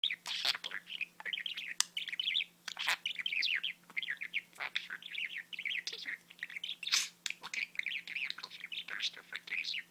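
Budgerigar chattering: a fast, continuous run of warbled chirps broken by sharp clicks.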